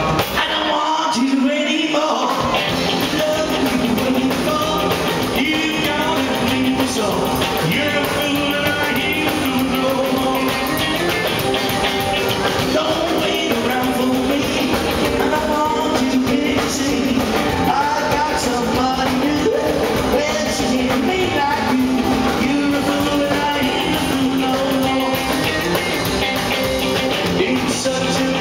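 Live rockabilly band playing: male lead vocals over an acoustic-electric guitar, upright double bass and drums, with a steady driving beat.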